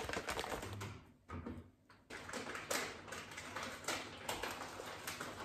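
Rubbing and bumping of a phone being handled and set down, then faint clatter and rustling of someone working at a kitchen counter, with a few sharp clicks.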